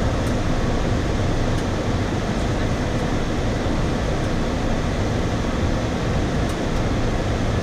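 Steady flight-deck noise of a Boeing 737-400 on short final approach: an even, deep rush of airflow and engine noise.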